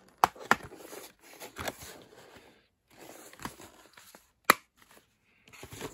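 Plastic DVD case being handled: rustling with several sharp clicks, the loudest about four and a half seconds in.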